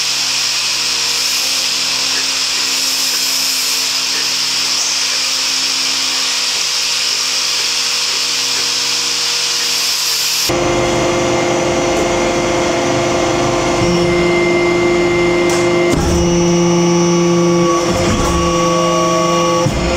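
A handheld power tool runs with a steady high whir as it polishes a copper hot-pot lid. About halfway through, this gives way abruptly to a metal-forming press running with a steady hum and a low rumble, which shifts a few times.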